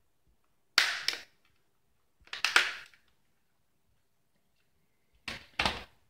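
Plastic snap-fit clips of an Asus 1225B netbook's case clicking into place as the top case is pressed onto the base, giving sharp snaps in three quick groups: about a second in, around two and a half seconds, and near the end.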